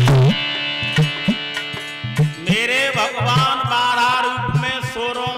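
Harmonium holding steady notes under regular hand-drum strokes, like tabla or dholak, in a devotional bhajan. About halfway through, a man's voice comes in on a long wordless sung note with a wavering vibrato.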